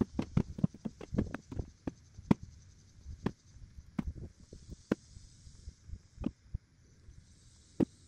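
Footsteps crunching on loose graded dirt: a quick run of steps, then slower steps about one a second.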